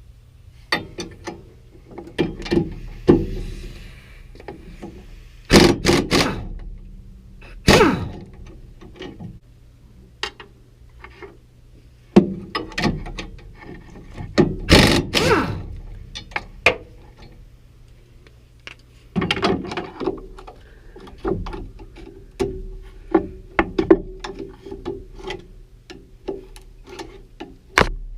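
Irregular metal clanks, knocks and rattles of hand work on a combine as small wires are taken out and parts handled, with a few louder bangs, over a faint steady low hum.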